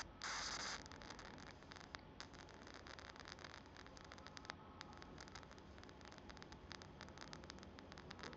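Faint crackling of a small high-voltage arc jumping between a wire tip and a terminal: a short hiss just after the start, then irregular fine ticks and crackles.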